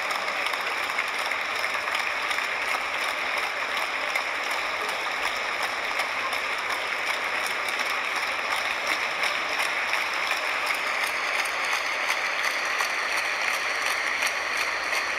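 Concert-hall audience applauding steadily, a dense, even clapping that keeps up without a break.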